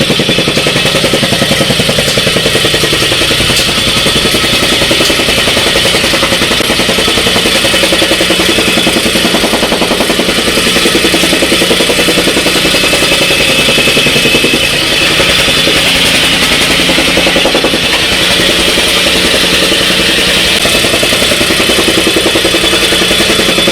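Jumping-jack tamping rammer (compactador canguro) running steadily at full throttle, its engine loud and its foot pounding the ground in a rapid, even rhythm.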